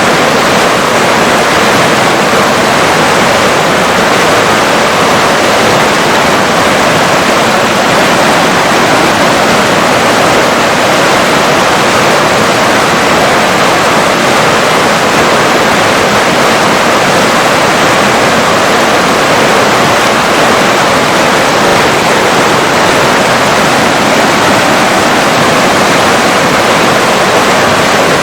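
A river's water rushing steadily as a loud, even rush with no breaks.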